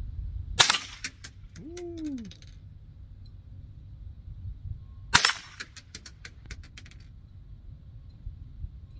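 Two gunshots from a scoped .22 LR rifle, about four and a half seconds apart. Each is a sharp crack followed by a rattle of echoes lasting a second or two.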